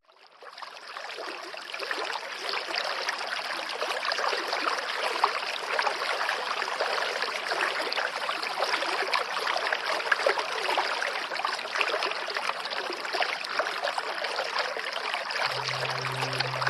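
Waterfall pouring into a stream: a steady splashing rush of water that fades in over the first couple of seconds. Near the end a low held musical note comes in underneath.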